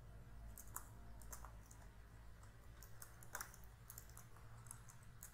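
Faint typing on a computer keyboard: irregular single keystrokes and short runs of keys, over a low steady hum.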